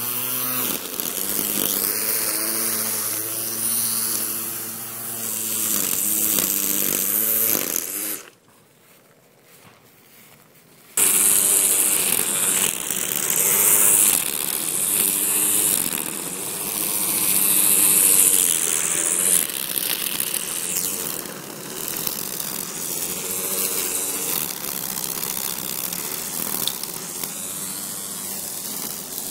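Ryobi 24V battery-powered string trimmer running, its electric motor whine rising and falling in pitch as the spinning line cuts grass. The sound cuts out for about three seconds a third of the way through, then comes back with a louder, higher-pitched stretch of the line striking grass along the pavement edge.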